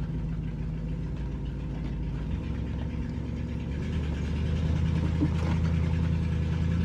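Old camper van's engine running at low speed, heard from inside the cab. Its low note changes partway through and it gets a little louder.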